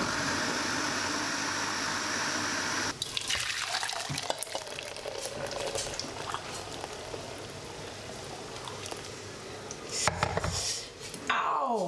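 A blender runs steadily for about three seconds and stops abruptly. Then blended kontomire leaf liquid is poured through a metal colander into a pot, running and dripping through the holes, with a few light metal clicks near the end.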